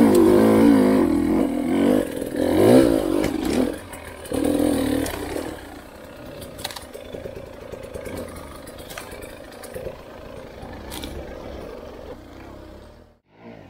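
Enduro motorcycle engine revving in several wavering surges, then running lower and steadier with scattered clicks, cutting off near the end.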